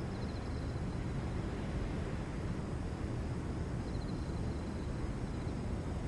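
Steady low outdoor rumble of a night ambience, with faint high chirps twice, near the start and again about four seconds in.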